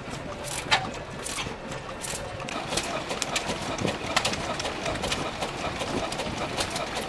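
Vintage stationary engines running, a clatter of sharp clicks and knocks that grows busier about two and a half seconds in, over a crowd's voices.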